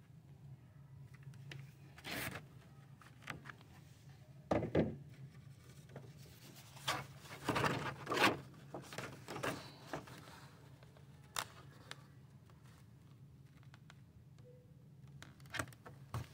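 Sheets of paper rustling and scraping against cardboard as they are handled and pressed down, in scattered bursts with a few sharp clicks, over a steady low hum.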